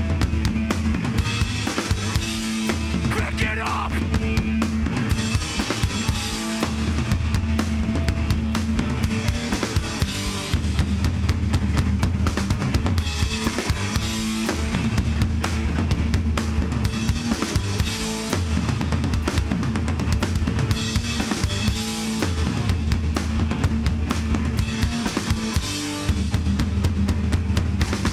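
Hardcore band playing live: drum kit, electric guitars and bass guitar pounding through a heavy, repeating riff.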